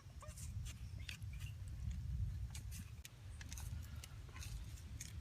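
Irregular short, sharp clicks and ticks over a steady low rumble.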